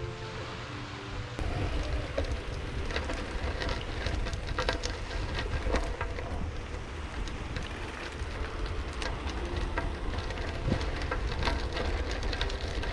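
Seawater splashing and lapping in small irregular splashes, with wind rumbling on the microphone.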